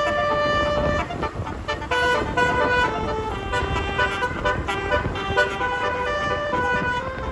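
Tour bus basuri (telolet) musical horn playing a tune of short stepped notes over a steady low engine and traffic rumble.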